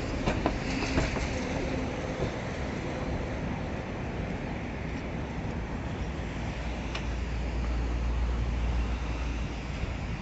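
Steady outdoor hum of distant road traffic, with wind rumbling on the microphone from about halfway through.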